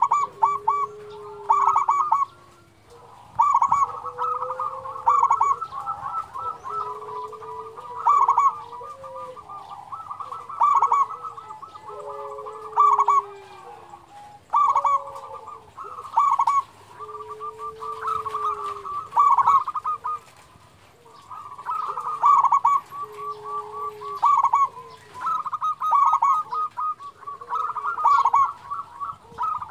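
Zebra dove (perkutut) singing: rolling, staccato cooing phrases repeated every two seconds or so.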